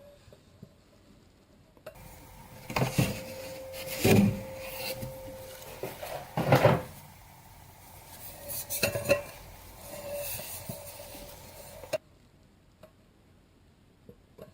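Vargo Titanium Bot titanium pot being handled: several sharp metal clanks and knocks, one ringing on briefly, over a hiss that starts about two seconds in and cuts off near the end.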